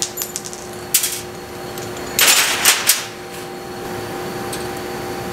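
Hammer tapping on a metal gear-shifter assembly: a few light clicks, one sharp strike about a second in, then a quick run of harder strikes between two and three seconds in, over a faint steady hum.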